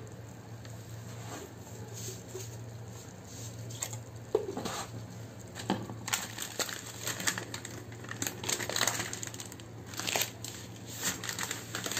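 Rustling and crinkling of a plastic spaghetti packet, with scattered light clicks and taps as dry spaghetti goes into a stainless-steel pot.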